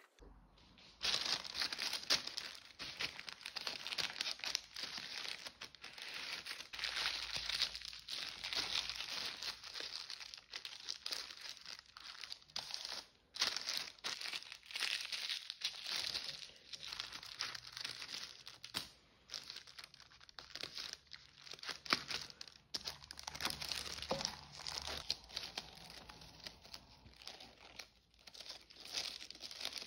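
Tissue paper crinkling and rustling as hands fold and smooth it around a flat package: a dense, uneven crackle of many small crinkles that starts about a second in.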